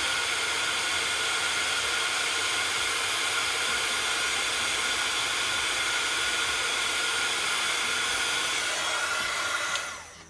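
Heat embossing gun running steadily, a fan-blown hiss of hot air with a faint steady whine, as it melts embossing powder on stamped cardstock. It is switched off near the end and the sound dies away.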